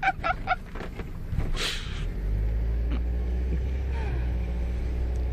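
Steady low engine and road rumble heard from inside a moving road vehicle, stepping up about two seconds in and holding steady; a short breathy sound comes just before.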